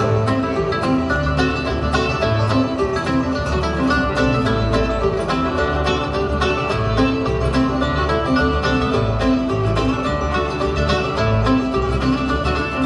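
Live bluegrass band playing: banjo, fiddle, mandolin and acoustic guitars over a steady upright-bass pulse.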